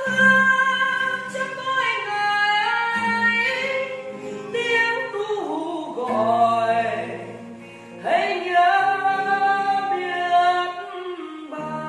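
Worship music with singing: voices holding long notes over sustained backing.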